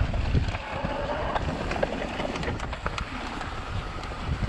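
E-mountain bike riding over rough trail heard from a chest-mounted camera: wind buffeting the microphone, tyre and trail noise, and sharp clicks and rattles from the bike. The whine of the Shimano Steps E8000 mid-drive motor is faint in the first second.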